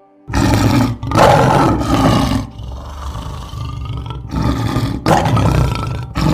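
A large wild animal, such as a big cat, roaring. It gives a run of loud, rough roars that begin suddenly, with the loudest in the first two seconds and more near the end.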